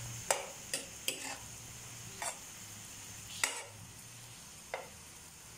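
Beef frying in oil in a frying pan over a high gas flame, with a faint steady sizzle. A metal spoon stirs and scrapes against the pan in about six short, sharp strokes.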